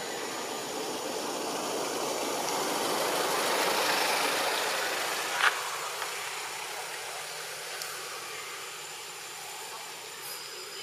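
A passing vehicle's engine, swelling to its loudest about four seconds in and slowly fading away, with one sharp click halfway through and a faint steady high-pitched whine underneath.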